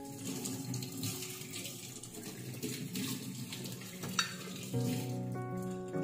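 Tap water running into a stainless-steel sink while a plate is rinsed, with a sharp knock a little past four seconds in as a plate is set into a plastic dish rack. Background music comes up near the end as the water stops.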